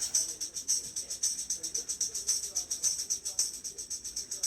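Rhythmic rattling like a shaken tambourine or maraca, steady at about four shakes a second.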